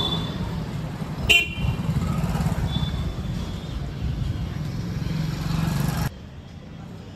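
Street traffic of motorbikes and scooters running past, with a short, loud horn honk about a second in and fainter horn beeps around it. The traffic sound drops suddenly about six seconds in.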